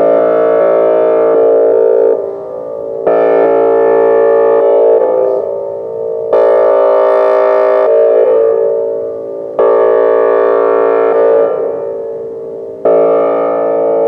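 Whelen Vortex R4 electronic outdoor warning siren sounding a loud, steady, multi-tone signal during a test. The sound comes in repeated swells about every three seconds, each starting suddenly and then fading.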